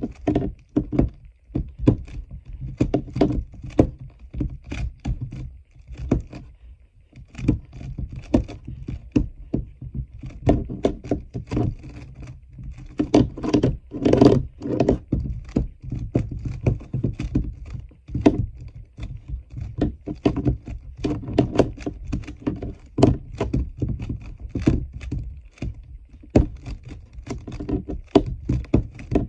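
Plastic 3x3 speedcube being turned rapidly with one hand: quick, irregular runs of clicking and clacking as the layers snap round, with a couple of short pauses.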